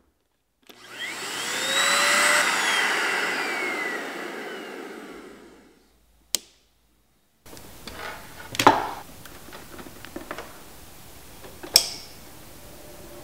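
Corded handheld vacuum cleaner switched on, its motor whining up to speed, then switched off and spinning down over a few seconds. A sharp click follows, then a few quieter clicks over faint background noise.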